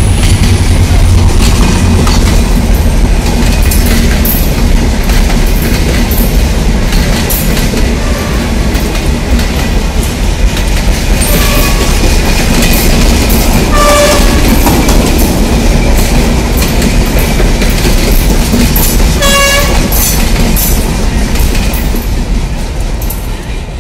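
Passenger coaches of a Bangladesh Railway express passing close at speed: a loud steady rumble with wheels clattering over rail joints. A train horn gives two short toots, about 14 and 19 seconds in. The sound drops off near the end as the last coaches go by.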